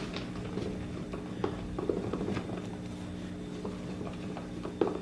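Light scattered taps and scrapes of popsicle sticks stirring slime in a cup, over a steady low hum.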